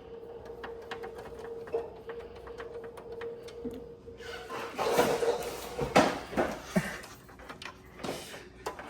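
Small metal clicks and scraping as screws are driven into a graphics card's mounting bracket on a PC case. Louder handling clatter comes about five seconds in, with a sharp click near six seconds, over a faint steady hum that fades about five seconds in.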